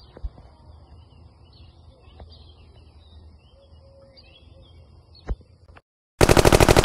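Birds chirping faintly over quiet river-bank ambience, with a couple of soft clicks. Near the end the background cuts out and a loud, rapid rattle of about a dozen sharp beats follows, lasting under a second.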